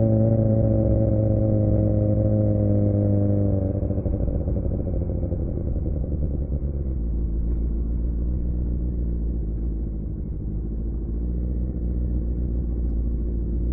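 2007 Suzuki GSX-R600's inline-four engine through a Yoshimura R11 exhaust, holding a steady engine note that falls slightly. About four seconds in, the note drops away to a lower, rougher rumble that carries on steadily.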